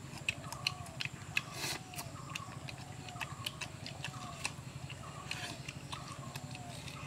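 Eating by hand: chewing and lip-smacking clicks as grilled chicken legs are picked and bitten, over a steady low hum and a short arched call repeated about twice a second.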